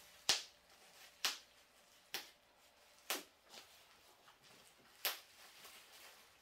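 Five sharp, light clicks or taps at uneven intervals, over a quiet room.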